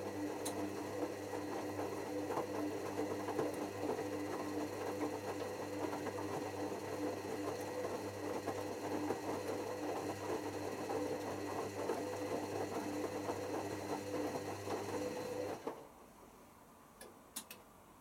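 Hoover WDYNS654D washer dryer's drum motor turning the wet laundry during the first rinse of a cotton cycle: a steady hum over the clatter of tumbling clothes. It stops suddenly about two seconds before the end, leaving a couple of faint clicks.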